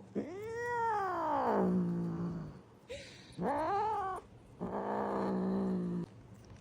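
A cat yowling in three long, drawn-out calls. The first rises and falls, then trails off into a low moan; the second is a shorter rise and fall; the third is a flatter, steady low moan.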